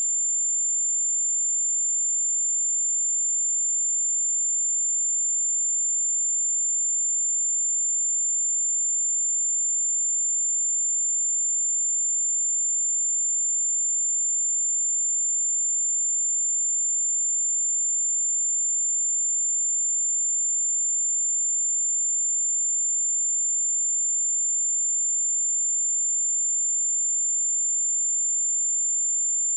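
Steady 7225 Hz sine-wave test tone: a single high-pitched pure tone, unchanging in pitch and level, used to check speakers and headphones.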